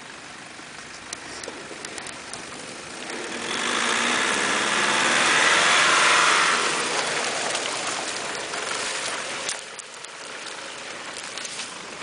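An off-road 4x4 drives past. Its engine and tyres grow louder over a few seconds, are loudest about six seconds in, then fade away.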